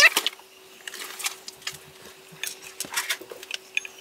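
Scattered light clicks and knocks of a plastic PTZ dome camera housing being handled and moved about, over a faint steady hum.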